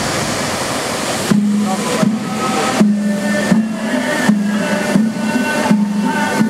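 Rushing spray of musical fountain jets, then show music over loudspeakers comes in about a second in. The music has a low held note and a melody, pulsing on a beat roughly every 0.7 seconds.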